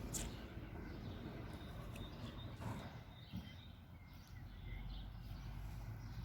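Outdoor ambience: small birds chirping faintly here and there, over a low steady rumble.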